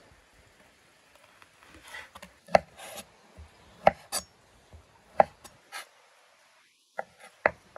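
Kitchen knife cutting lamb tail fat into cubes on a wooden cutting board: soft slicing through the fat, with several sharp knocks as the blade strikes the board, roughly a second apart.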